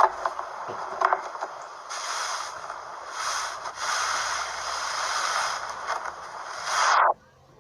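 Slime being squeezed and worked by hand, a wet crackling full of small popping clicks. It stops abruptly about seven seconds in.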